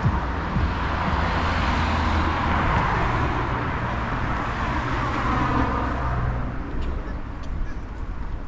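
A car driving past, its tyre and engine noise swelling and then fading out about six or seven seconds in, followed by a few faint clicks near the end.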